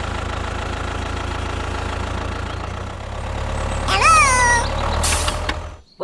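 Tractor engine running steadily with a low, even chugging, dubbed over a toy tractor. About four seconds in comes a short high squeaky call that rises then falls, followed by a brief hiss, and the engine cuts off just before the end.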